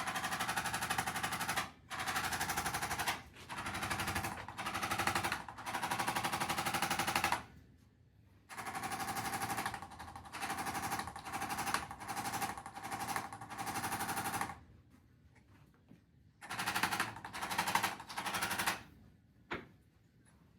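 Handheld electric percussion massager running against the muscles of the upper back in bursts of one to three seconds, a fast, even rattle of taps with a steady motor hum underneath, stopping briefly between bursts about a dozen times.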